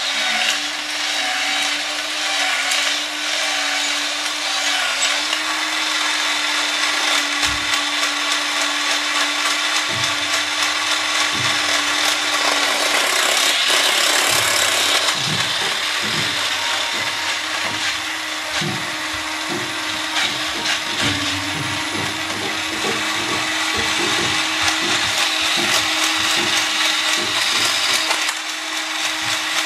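A Robot 2001 toy robot's small electric motor and gearbox running with a steady whirr and hum on its first test run after repair. From about ten seconds in, irregular clicks and knocks come from its mechanism.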